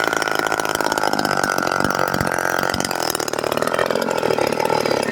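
Aldens 25DA chainsaw (a rebadged Poulan 25DA) with a stack muffler, its two-stroke engine running hard at a steady high speed. The pitch dips briefly about three seconds in, then the sound cuts off suddenly at the very end.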